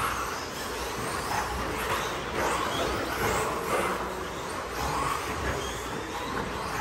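A pack of 1/10-scale electric RC stadium trucks with 13.5-turn brushless motors racing on a carpet track, the motors whining up and down in pitch as they accelerate and brake.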